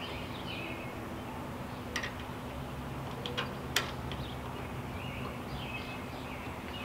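A few sharp, faint metal clicks, the loudest nearly four seconds in, as a bolt on a trimmer-rack bracket is tightened by hand, over a steady low hum with birds chirping now and then.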